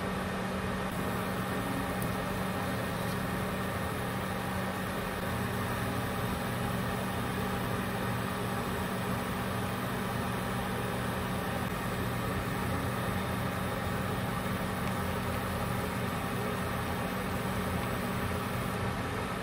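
Induction cooker running with a steady, unchanging hum under a pan of boiling broth.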